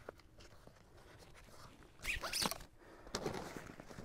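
Nylon strap and bag fabric rasping twice, in short zip-like pulls about halfway and again shortly after, as a soft motorcycle saddle bag's strap is loosened and threaded out of its buckle.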